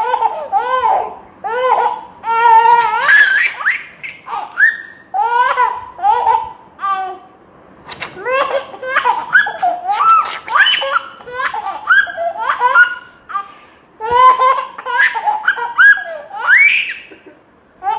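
A baby laughing hard in long bouts of quick, high-pitched laughs, with short pauses about 4, 7 and 14 seconds in.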